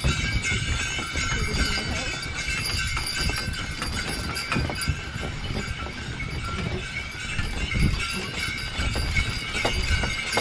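Horse-drawn sleigh on the move: a team of two horses' hooves clopping in snow, with the harness sleigh bells jingling.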